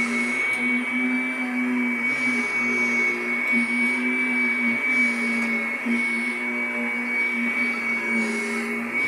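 Vacuum cleaner motor running steadily, a high whine over a low hum.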